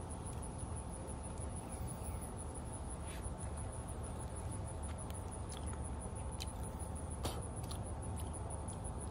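Outdoor ambience: a steady, high-pitched, pulsing insect trill over a low rumble, with a few short soft clicks from mouth sounds as ripe soursop is eaten.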